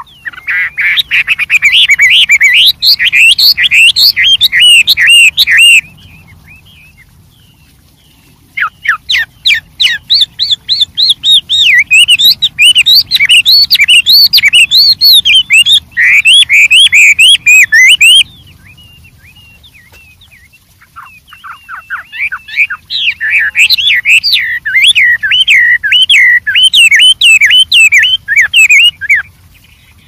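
A Chinese hwamei (wambi) singing loud, fast song with many variations of quick repeated notes, in three bouts of several seconds each with short pauses between.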